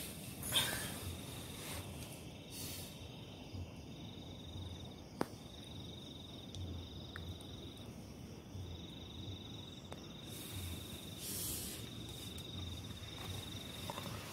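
Faint high-pitched insect trill, a steady buzz in long stretches with short breaks, typical of a cricket at night. There is a brief rustle just after the start and a sharp click about five seconds in.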